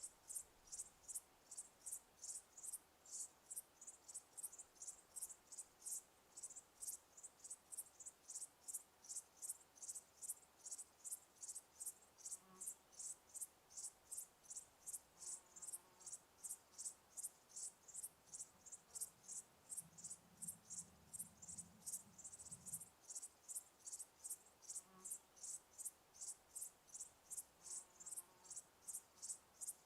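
Crickets chirping in a steady, even rhythm of about two to three high chirps a second. A faint low rumble comes in briefly about two-thirds of the way through.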